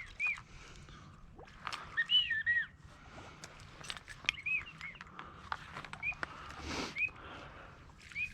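Short arching whistled duck calls, repeated a dozen times in small runs, with scattered light clicks and a brief rush of noise about two-thirds of the way through.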